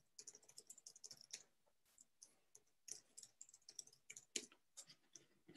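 Faint computer keyboard typing: a quick run of key clicks in the first second and a half, then slower, scattered keystrokes.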